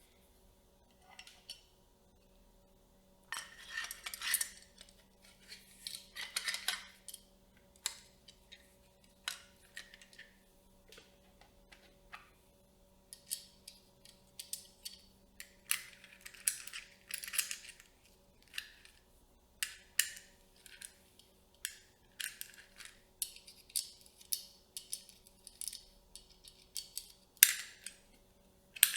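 Close-miked handling of cinema camera rig parts: a steady run of separate clicks, taps and short scraping rustles of metal and plastic pieces being picked up, set down and fitted together. The loudest is a sharp click near the end.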